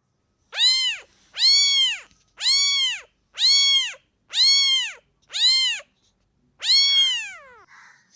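A domestic cat meowing seven times, about once a second. Each meow rises and falls in pitch, and the last one is longer, trailing off downward.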